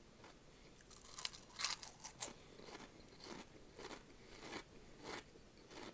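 Close-up crunching as crunchy Flamin' Hot snacks are bitten and chewed: a run of loud, sharp crunches in the first couple of seconds, then steady chewing at a little under two chews a second.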